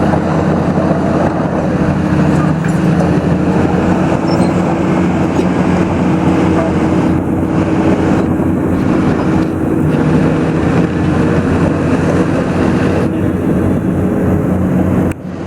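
BELAZ 45-short-ton off-highway dump truck's diesel engine running steadily, with a brief drop in level near the end.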